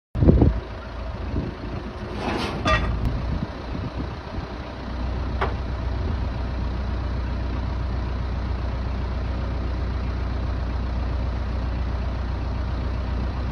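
Vehicle engine running at a steady idle through its freshly resealed exhaust muffler, with a few knocks and clatters in the first three seconds before it settles into a steady low hum.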